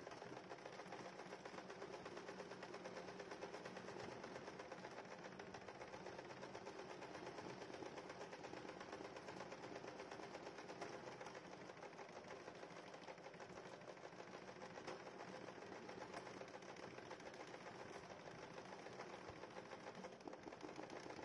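Usha Janome Wonder Stitch electric sewing machine running steadily and faintly, its needle stitching rapidly in straight-stitch free-motion embroidery.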